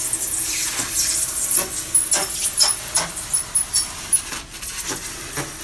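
Pocket knife blade scoring foil-faced EPS foam insulation board as it is drawn down the sheet along a tape measure: a scratchy scraping with many small clicks and crackles, easing off a little about four and a half seconds in.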